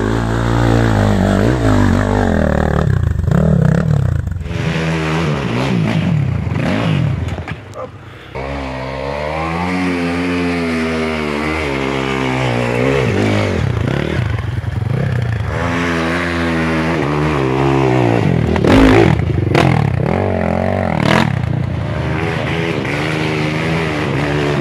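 Enduro dirt bikes climbing a steep muddy slope one after another, their engines revving up and down hard as the rear wheels dig and spin. Loudness drops briefly about a third of the way in, and there are a couple of sharp knocks near the end.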